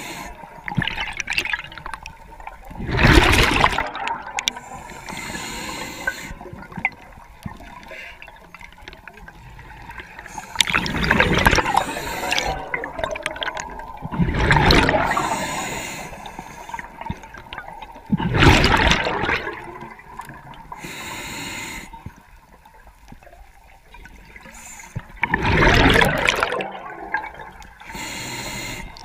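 Underwater water noise broken by five loud, rushing, bubbling bursts of about a second each, a few seconds apart: a diver's exhaled bubbles.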